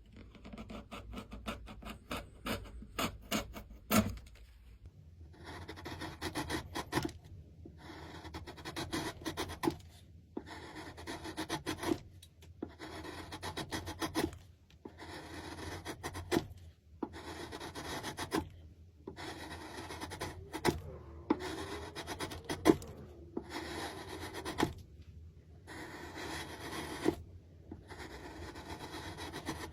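Quick light taps and clicks for the first few seconds, then a hand tool scraping along wood in repeated strokes, each a second or two long with short pauses between.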